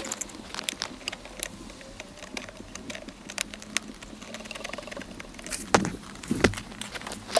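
Metal hand tools clicking and clinking while a bolt is fitted on a car's handbrake lever mounting, with two louder knocks near the end.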